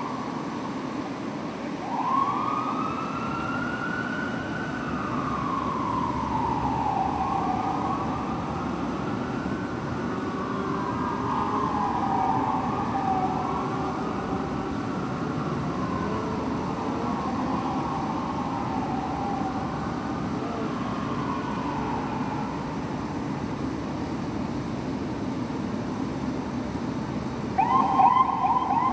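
Fire truck sirens wailing in slow rising and falling sweeps that overlap and slowly fade with distance, over a steady low rumble. Near the end a louder siren starts up close by with a fast, rapidly pulsing yelp.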